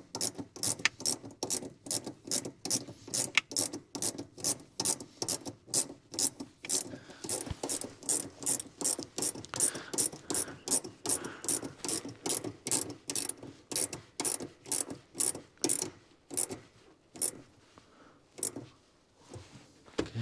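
Hand ratchet wrench being cranked to tighten a nut on the car's rear suspension, clicking evenly about two and a half times a second. The clicks slow and stop about two seconds before the end.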